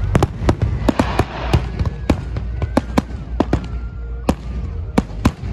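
Aerial fireworks bursting in rapid, irregular bangs, several a second, over a steady low rumble. There is a burst of crackling about a second in, and the bangs thin out near the end.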